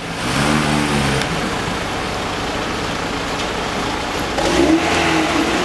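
Lada Niva's engine idling steadily.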